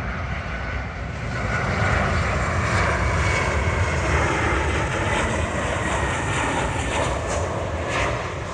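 Jet airliner engines: a steady loud rush with a faint whine that slowly falls in pitch, swelling a couple of seconds in and easing off toward the end.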